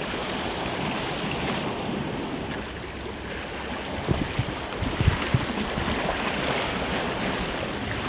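Small sea waves washing and breaking against shoreline rocks, a steady rushing wash, with wind buffeting the microphone in a few short low thumps about halfway through.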